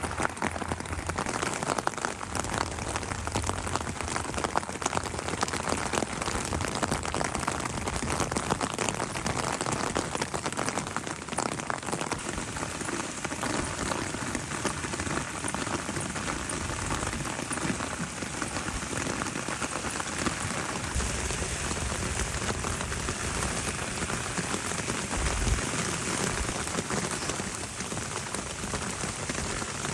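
Steady rain falling, a dense patter of many raindrops.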